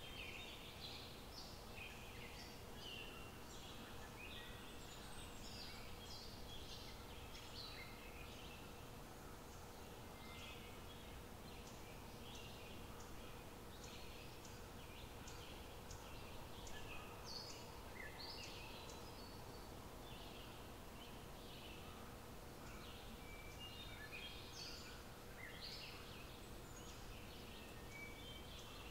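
Many birds chirping in short calls of varying pitch, faint, over a low steady background noise.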